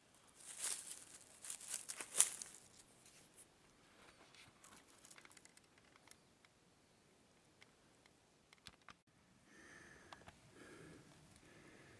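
Dry beech leaves and forest litter crackling and rustling in a few quick bursts during the first couple of seconds, then faint scattered crackles. Near the end, a low, uneven rustle of steps through the leaf litter.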